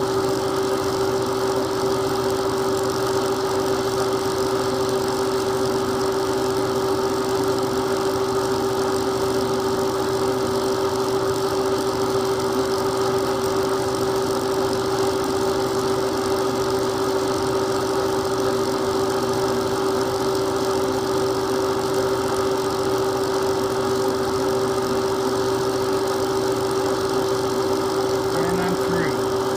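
Milling machine spindle running with a steady whine while a tiny #76 bit in a sensitive drill chuck drills an exhaust hole in a small engine cylinder head.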